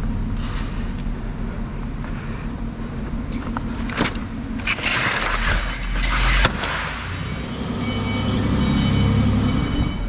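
A plastic pallet scraping and clattering on a concrete floor, with a sharp knock about six and a half seconds in, over the steady low hum of a vehicle engine running.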